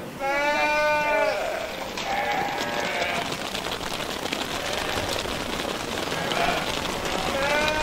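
Sheep bleating: a loud wavering bleat right at the start, a fainter one a couple of seconds later, and another beginning near the end, over a steady hiss.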